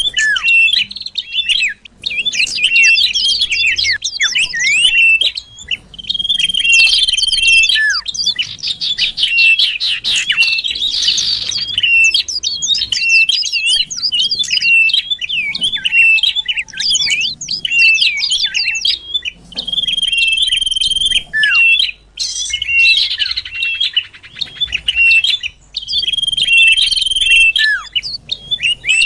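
Common iora (cipoh) song played as a bird-lure call: long steady whistles, each about a second, come back every several seconds between fast runs of chirps and trills.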